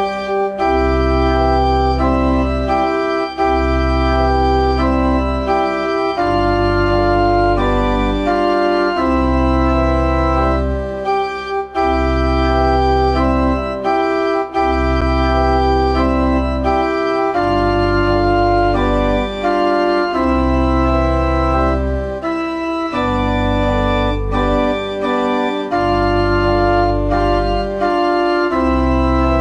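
Organ music: slow sustained chords that change every second or two over a deep held bass line.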